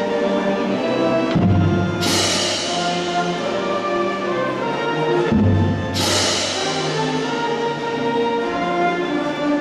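A student concert band plays held chords on flutes, clarinet, trumpet and saxophones. A loud crash rings out and dies away slowly about two seconds in, and again about six seconds in.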